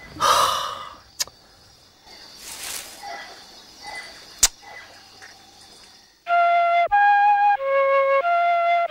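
A flute starts a slow melody about six seconds in, one held note after another, rising and falling. Before it there is a short noisy rush and a couple of sharp clicks, much quieter.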